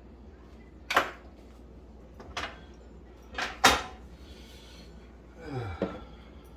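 Plastic parts of a GE microwave's control panel being handled and pried apart: a few separate sharp clicks and knocks, the loudest a little past three and a half seconds in.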